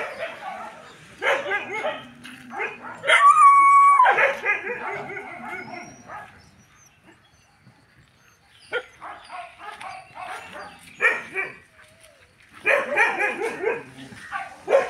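A pack of kennelled street dogs barking and yipping in repeated bursts, with one long, high whine about three seconds in and a quieter lull near the middle.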